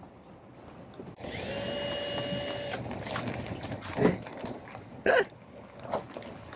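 A handheld power drill runs at a steady speed for about a second and a half, then stops. A few short, sharp sounds follow.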